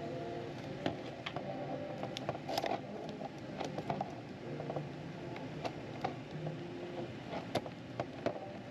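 Irregular light clicks and scrapes of small plastic keyboard parts being handled and set down, over a steady low hum.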